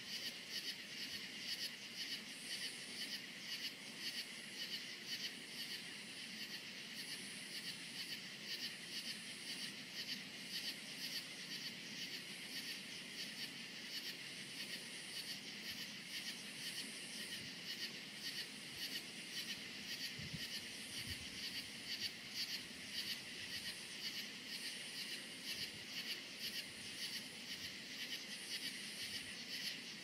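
Night chorus of crickets chirping in a rapid, even pulse, with a second, higher-pitched insect call returning every couple of seconds.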